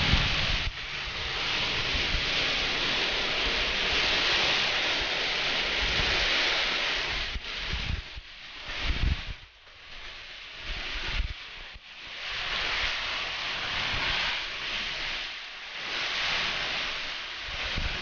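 Heavy rain and gusting wind of a violent storm, the rush swelling and easing in waves, with low gusts buffeting the microphone now and then.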